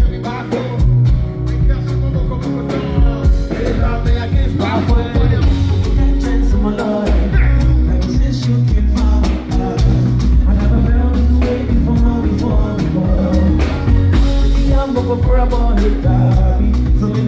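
A live band playing, with a heavy bass line, drums and vocals over it.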